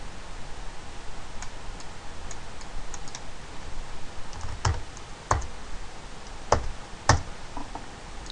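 Computer keyboard keystrokes as a number is typed in: a few light taps, then four louder, separate key presses in the second half, over a faint steady hiss.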